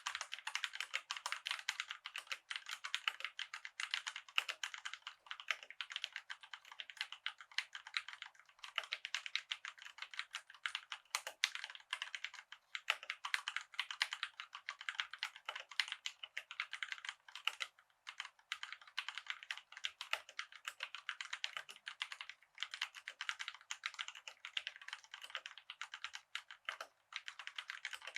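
Fast, continuous typing on a COX CK87 tenkeyless mechanical keyboard with Gateron brown switches: a dense run of key clacks, broken by a few brief pauses.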